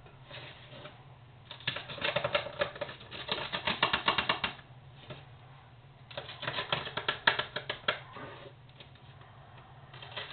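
Crisp, well-toasted pizza crust crunching in two bursts of rapid crackling, one starting about a second and a half in and the other about six seconds in.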